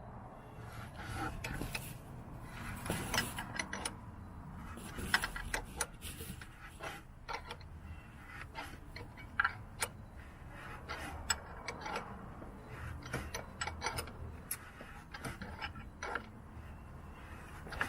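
Metal hand tools clicking, tapping and scraping in irregular strokes as a seal puller is worked into a crankshaft oil seal to pull it out.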